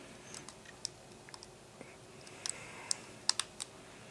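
Light, irregular clicks and taps from handling a reassembled iPod mini, its small casing parts clicking, with a quick cluster of sharper clicks about three seconds in.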